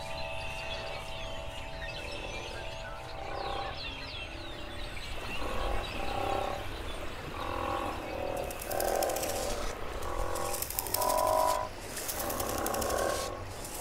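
A layered chorus of animal calls: short pitched croaks repeating about once a second, joined from about eight seconds in by bursts of a high rattling trill. A lingering chime tone fades out at the start.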